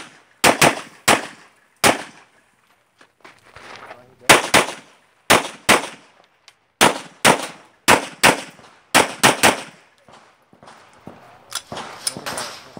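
A string of shots from a Glock 34 9mm pistol firing 147-grain ammunition during a timed stage. The shots come mostly in quick pairs, with short pauses between groups as the shooter moves from target to target.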